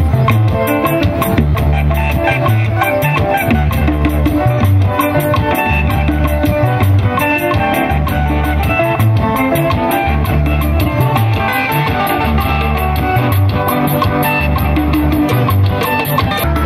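Upbeat music with a steady beat and a pulsing bass line.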